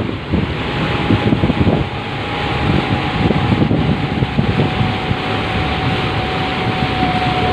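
Wind buffeting the microphone over a ferry running at speed: the steady drone of its twin Scania DI13 marine diesel engines and the rush of the churning wake behind the stern. A faint steady whine runs beneath it from about half a second in.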